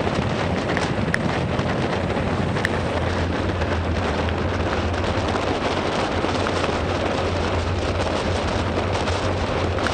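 Steady rush of wind and rain noise on a handlebar-mounted camera during a fast bicycle descent in pouring rain, with a low rumble and a few faint ticks of raindrops hitting the camera.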